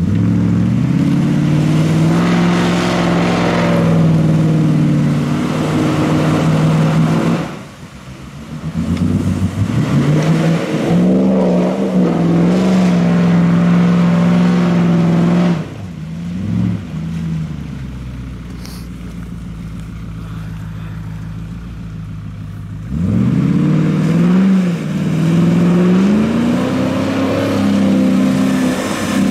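Land Rover Discovery's V8 engine with a tuned camshaft revving hard as it forces through deep mud, in three long pushes. The revs drop back between pushes, with one short blip of the throttle in the quieter middle stretch.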